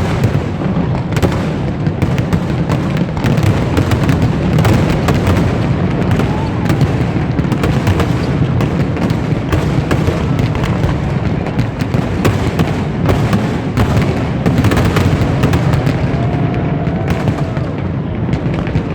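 Fireworks display at full intensity: a dense, unbroken barrage of bangs and crackling over a constant low rumble.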